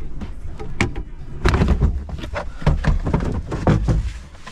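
Knocks, thumps and clattering as the Chrysler PT Cruiser's rear parcel shelf is banged and pulled loose. A few light knocks come first, then a dense run of thumps from about a second and a half in.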